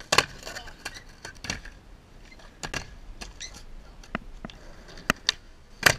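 Skateboard on concrete: a string of sharp clacks and snaps from the tail popping and the deck and wheels landing, about ten in all, the loudest near the end, with faint wheel rolling between them.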